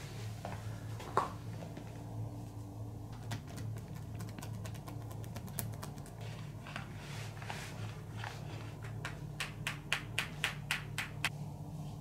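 Light, quick taps of hands during a massage, scattered at first, then a run of sharper taps about two to three a second around three-quarters of the way through, over a steady low hum.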